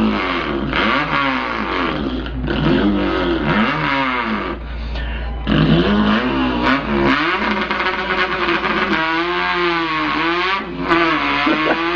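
A man imitating an import car's engine with his voice, revving it, the pitch climbing and dropping again and again.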